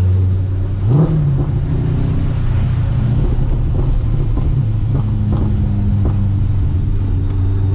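Procharger-supercharged Corvette C6 LS3 V8 running at low, steady revs, heard from inside the cabin. About a second in there is a short rise in revs that settles back.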